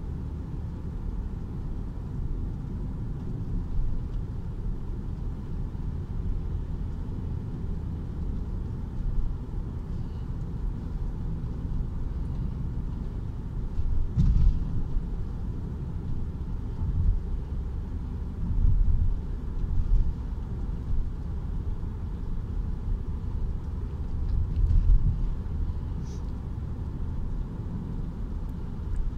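Car cabin road noise while driving: a steady low rumble of tyres and engine heard from inside the car, with a few brief louder bumps, the strongest about halfway through.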